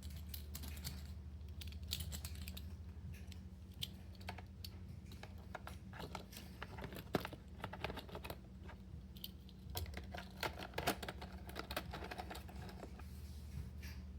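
Small plastic fidget toys being handled, giving irregular runs of light clicks and clacks like typing, over a steady low hum.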